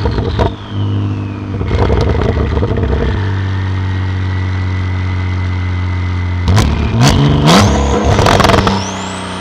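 Porsche 911 Carrera (991.2) twin-turbo flat-six with a titanium exhaust, running at a steady low note, then revved hard several times in quick succession in the last few seconds before dropping back to a quieter low tone.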